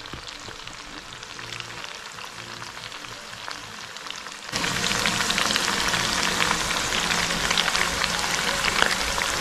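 Pork stomach, kidney and beef liver sizzling in a wok, a steady crackle that jumps louder about halfway through.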